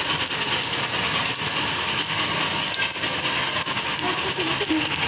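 Besan-battered fish pieces deep-frying in hot oil, the oil sizzling steadily with fine crackling.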